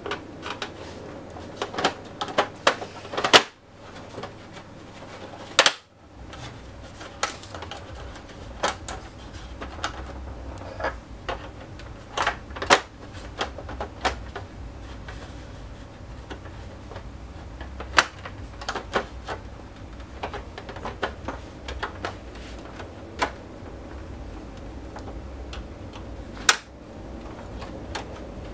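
Irregular sharp plastic clicks and snaps from the Xbox One's plastic shell being gripped and worked at its edges, as it is prised apart from its clip latches. A few clicks are much louder than the rest.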